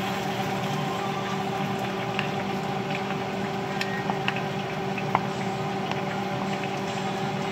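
A steady machine-like hum with several fixed tones throughout, and a few light clicks of metal tongs against a plastic bowl as potato slices are turned in flour.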